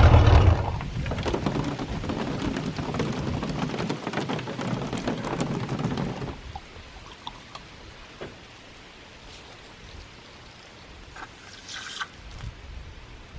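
Boat's MerCruiser engine running on a flush setup cuts off about half a second in. Water then splashes and trickles for several seconds before dying away about six seconds in, leaving only a few faint clicks.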